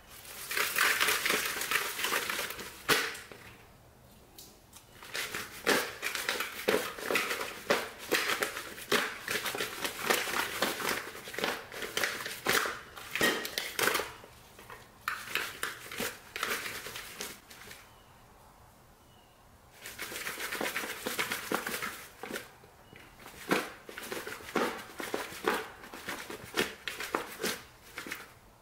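Salad greens and crunchy bread croutons being tossed in a bowl, a crisp rustling and crackling that comes in three stretches with brief pauses about 3 and 18 seconds in.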